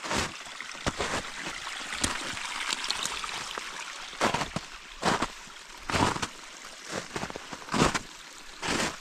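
A small brook trickling over rocks beneath the snow, loudest in the first few seconds, with crunching footsteps of microspike-shod boots on frozen snow about once a second; the steps are the loudest sound.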